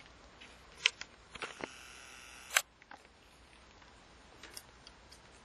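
A few sharp clicks from switching on a digital multimeter's rotary dial, then the faint whir of a video camera's zoom motor for about a second, ending in a click.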